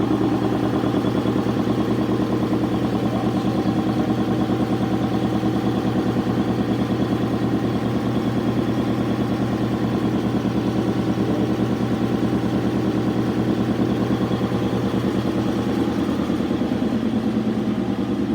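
Champion VR7-8 air compressor running: a 7.5 hp motor driving a slowed-down reciprocating pump at about 600 RPM, making a loud, steady hum with a rapid, even pulsing chug as it refills the tank after air was drained.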